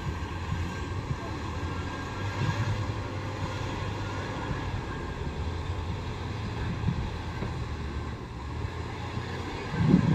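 Diesel engine of an SDLG wheel loader running steadily as the machine moves about a dump truck, with a louder low surge right at the end.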